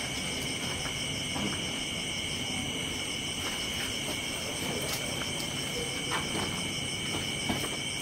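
Crickets or other night insects trilling steadily at several high pitches at once, with a few faint clicks.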